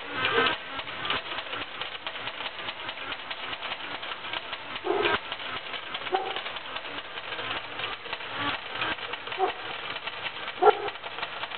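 Bally Reel Gems slot machine's coin hopper paying out a 100-credit win, coins dropping in rapid clicking succession into the metal coin tray, with a few louder clanks.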